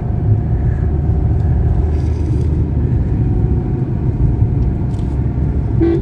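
Steady low rumble of a car's engine and tyres, heard from inside the cabin while driving.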